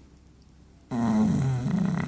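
Chow chow snoring: one loud, drawn-out snore starting about a second in, its pitch dipping and then rising again.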